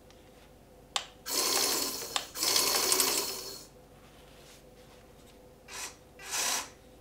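Rapid mechanical rattling from the breaker-hammer attachment of an Amewi 22501 1/14-scale RC excavator. After a click about a second in, it runs in two bursts of about a second each, then two shorter bursts near the end.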